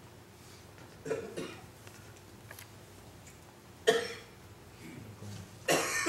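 A person coughing in a quiet room: one sharp cough about four seconds in and another near the end, with fainter short sounds about a second in.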